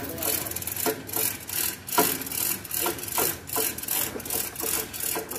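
Manual chain hoist being hauled by hand, its chain running through the block in repeated short strokes, two to three a second, as it lifts a stack of speaker cabinets.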